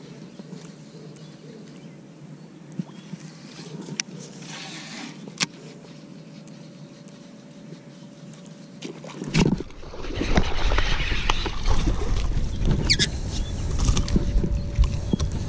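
Sounds aboard a bass boat on a lake: a faint steady hum with a few light clicks, then, from about nine seconds in, a much louder rough rumble with scattered knocks.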